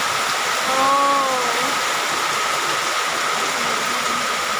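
Heavy, nonstop rain pouring down, a steady, even hiss of falling water.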